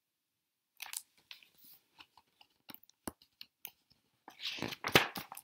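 Handling noises from a picture book being lowered and put aside: scattered small clicks and paper rustles starting about a second in, then a louder rustle and a knock near the end.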